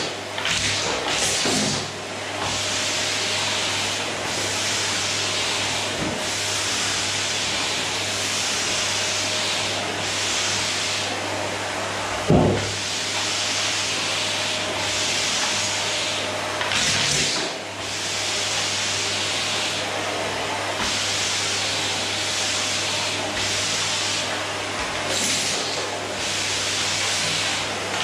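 Electrolux canister vacuum cleaner running steadily, a loud hiss over a low hum, with a few brief dips in the hiss. A single sharp knock about twelve seconds in.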